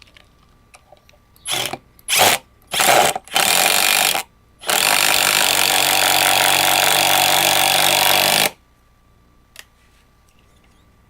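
Bosch PDR 18 LI 18-volt cordless impact driver running in four short bursts, then held on for one steady run of about four seconds that stops abruptly.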